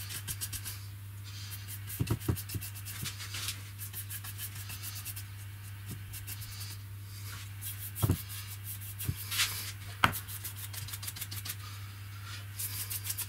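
A bristle brush scrubbing finish onto a wooden box in quick, even strokes, about six a second, coming in short spells. There are a few sharp knocks in between, about two seconds in and again near the middle.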